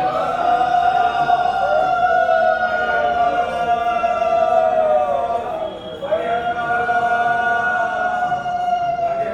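Several conch shells (shankha) blown together in long, steady held notes. The first blast sags in pitch and fades about five and a half seconds in, and a fresh blast starts about six seconds in.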